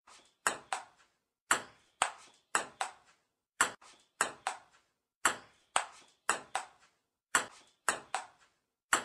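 A string of about twenty short, sharp pinging taps, each ringing out briefly, coming in irregular groups of two or three with short silences between.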